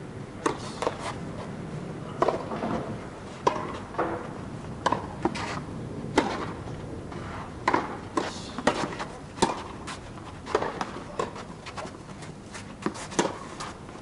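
Tennis ball being struck by rackets and bouncing on the court during a rally: a run of sharp, irregular knocks, at times several a second.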